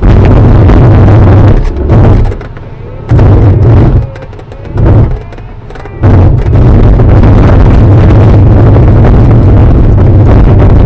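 Sailplane rolling on its main wheel over bumpy grass, heard inside the cockpit: a loud rumble and rattle through the fuselage that eases off twice in the first half, then runs on steadily.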